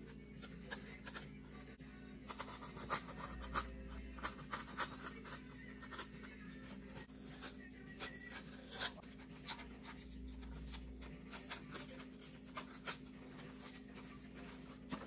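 A scalpel trims cured two-part foam off a foam model-jet wing while blue painter's tape is pulled away from the repair. The sound is irregular small scrapes, scratches and clicks.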